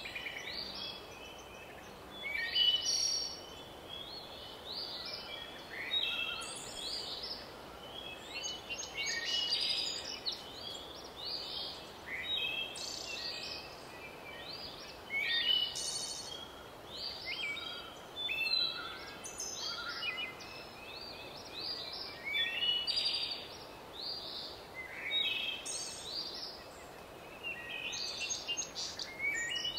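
Songbirds chirping and trilling, many short calls following one another every second or so over a faint steady hiss.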